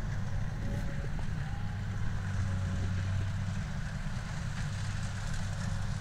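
Steady low rumble of a Kubota DC70 diesel combine harvester working across the rice field, mixed with wind buffeting the microphone.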